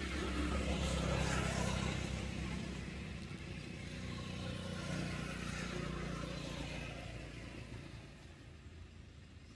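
A motor vehicle passing by: engine and road noise swelling about a second in, swelling again around five seconds, then fading away.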